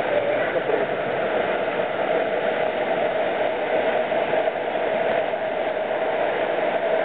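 Steady rushing of river water flowing through a cave.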